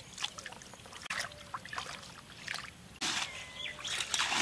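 Hands groping and splashing in shallow muddy water while hand-fishing in a paddy-field ditch: scattered small splashes and squelches, getting louder about three seconds in.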